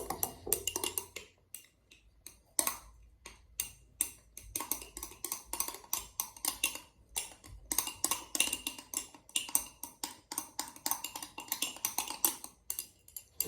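A utensil stirring cloud slime (glue, foam soap and hand cream) in a cup, knocking against the cup in quick, irregular clicks and taps, several a second, with short pauses in between.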